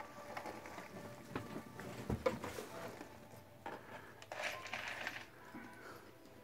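Milk poured from a plastic gallon jug into a bowl of cereal, a brief rushing splash about four seconds in, after a run of clinks and knocks from the jug and bowl being handled, the sharpest knock about two seconds in.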